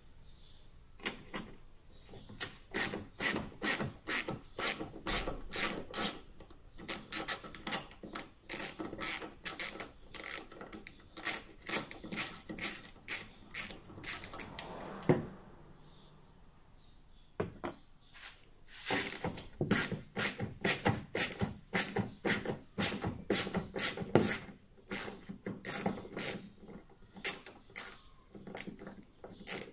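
Ratchet wrench clicking in quick repeated strokes, about three a second, as it undoes the tail light's mounting nuts. It stops briefly near the middle after a single sharp knock, then carries on.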